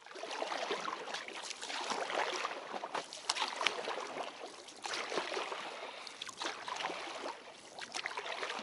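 Water splashing and sloshing as an inflatable boat is rowed, with irregular splashes and drips.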